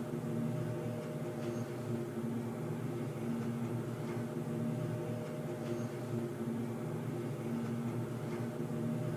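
Underground ambience: a steady, low, machine-like droning hum with several held tones that swell and fade, and a faint high tick about every four seconds.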